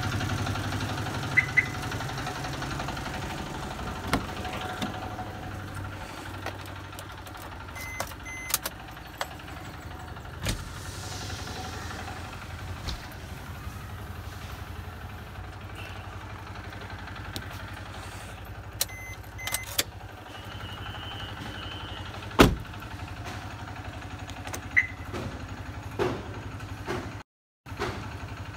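Maruti Suzuki Baleno's electric power windows running up one after another, driven by an aftermarket automatic window closer after the car is locked with the key fob. A short beep comes about a second in, scattered clicks run throughout, and one sharp knock comes about three-quarters of the way through.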